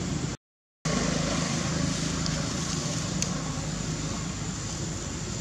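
Steady background noise of motor traffic, a low hum with hiss over it. It cuts out completely for a split second about half a second in.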